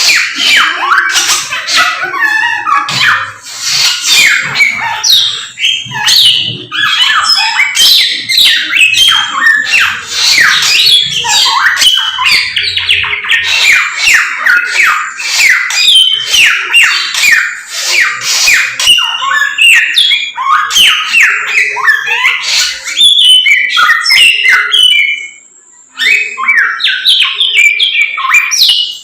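Chinese hwamei (samyong) singing loudly and continuously, a rapid run of varied whistled notes, many sliding downward, with a brief pause near the end: the bird in full song.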